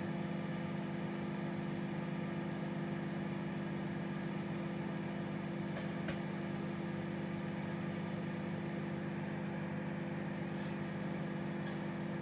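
Microwave oven running with a steady hum, while fish fillets cook inside. A few faint ticks and pops from inside the oven come about halfway through and again near the end.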